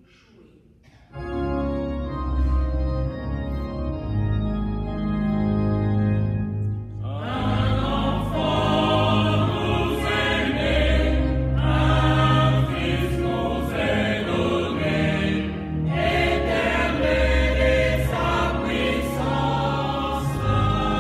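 Choir singing with instrumental accompaniment. Sustained chords with a bass line start about a second in, and the choir's voices come in over them some six seconds later.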